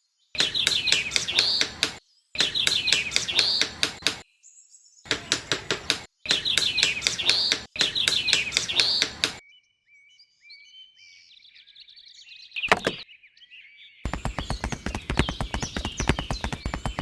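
Quick, even strokes of a hand tool on small pieces of wood, about seven a second, in short bursts that start and stop abruptly. Birds chirp behind them, with a single knock and then a faster run of strokes near the end.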